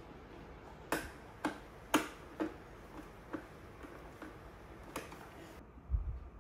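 Sharp plastic clicks, about two a second and uneven, as a screwdriver works screws into the molded plastic panels of a children's playset. A dull low thump near the end.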